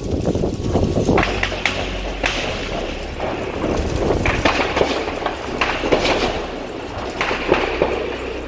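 Scattered gunfire: several sharp cracks a second or so apart, each trailing a short echo, over a steady low rumble.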